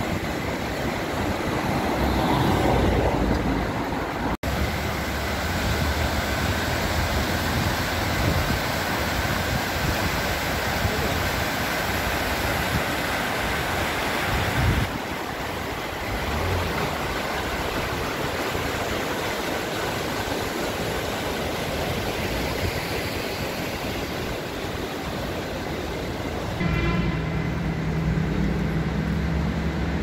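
Steady rush of a fast mountain river over stones, mixed with road traffic. Near the end a nearby car engine hums steadily.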